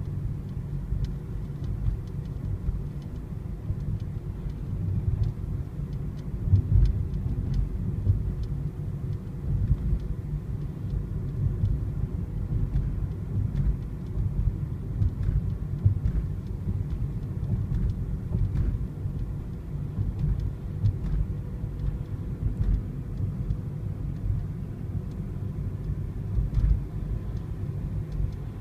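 Low, steady rumble of a car being driven along a road: engine and tyre noise, rising and falling a little.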